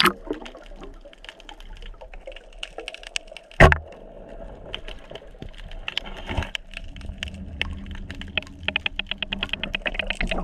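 Underwater sound of a spear strike: one loud thud about three and a half seconds in as the spear hits a fish on the sandy bottom, over a constant irregular crackle of clicks. A fast, even run of clicking fills the last two seconds while the speared fish is held on the shaft.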